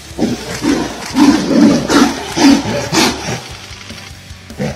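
Tigers snarling and growling in a fight, in a run of short harsh bursts that ease off near the end.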